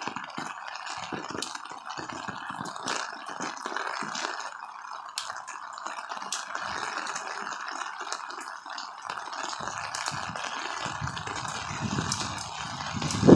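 Torrential rain pouring down as a steady hiss, with individual drops ticking sharply close by. Low rumbling gusts of wind on the microphone build up near the end.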